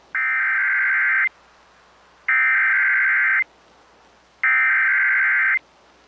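Emergency Alert System SAME header sent over NOAA Weather Radio: three bursts of warbling digital data tones, each about a second long and about a second apart. The header encodes the alert and marks the start of a tornado warning broadcast.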